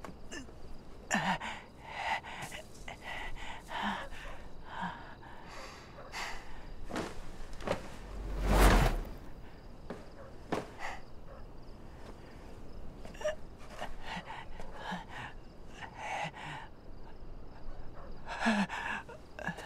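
A scatter of short, soft sounds, breaths and small rustles among them. About eight and a half seconds in comes one loud rushing whoosh with a low thud under it.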